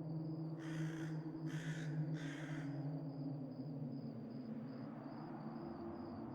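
Crow cawing three times in quick succession, harsh and raspy, in the first half. Underneath runs a steady low drone and a faint high, evenly pulsing chirp like crickets.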